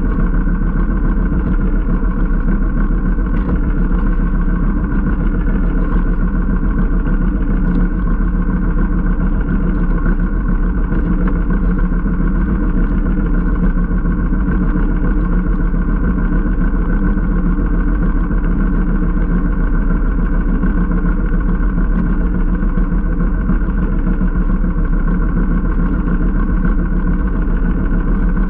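A small engine running steadily at a constant speed, with an even hum that holds the same pitch throughout.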